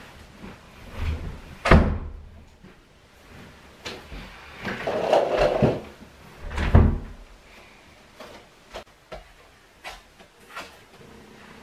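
Door and cupboard knocks: two loud bangs about five seconds apart, a short stretch of rustling between them, and lighter clicks and taps near the end.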